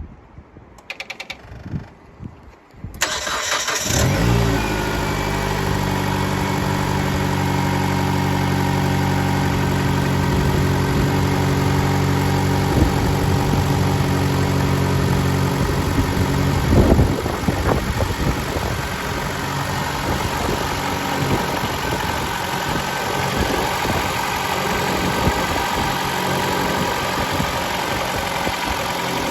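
Mitsubishi Lancer X's 2.0 L 4B11 inline-four starting about three seconds in after a short crank, then idling at a raised speed that drops and settles about seventeen seconds in. The engine carries a dull knock from the timing-chain side, which the owner suspects is the valves, while shops variously blame the valves, the timing chain or the cam phasers.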